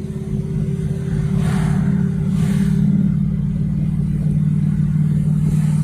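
Car engine and road noise heard from inside the cabin while driving, a steady low drone that drops slightly in pitch about four seconds in.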